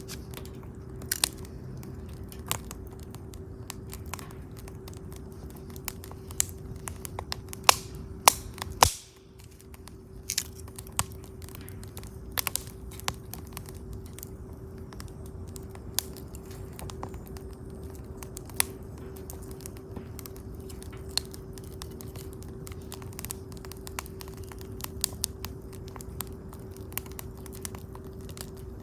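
Wood campfire crackling, with irregular sharp pops from the burning wood and a cluster of louder pops about eight seconds in.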